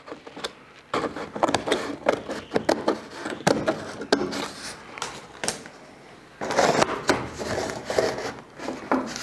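Scissors snipping through a brown paper template, a run of short cuts with paper rustling. About six and a half seconds in it turns to louder paper crinkling and rubbing as the template is pressed and smoothed against the cab's sheet metal by hand.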